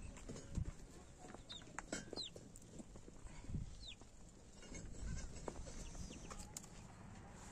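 Faint farmyard sounds of domestic fowl: scattered short, high, falling chirps with a few soft knocks and clicks over a low background.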